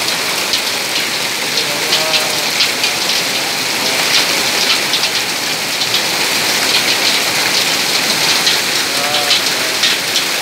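Heavy rain mixed with hail: a dense steady hiss peppered with sharp ticks of hailstones striking car bodywork and the road.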